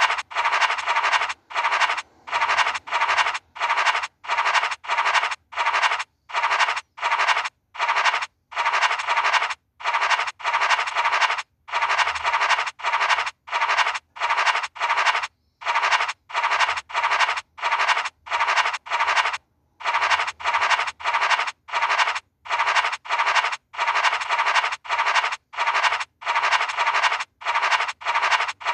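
Online scratch-card game's scratching sound effect: a raspy scratch noise repeated in short bursts about half a second long, roughly one and a half a second, as the number boxes are scratched off one by one.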